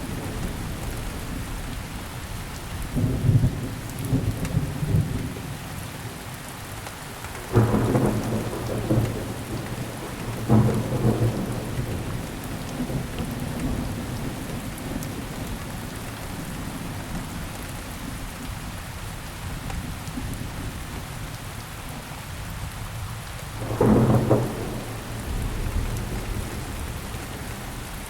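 Steady rainfall hissing evenly, with rolls of thunder rumbling low four times, each lasting a second or two; the ones about a third of the way in and near the end start suddenly.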